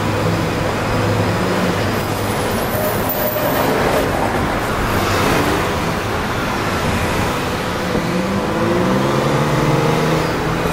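Busy street traffic with double-decker buses passing close by. Near the end a bus engine climbs in pitch as it pulls away.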